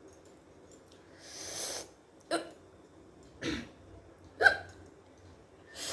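A woman hiccuping three times, about a second apart, after a long breath. The hiccups are brought on by eating very hot raw green chillies.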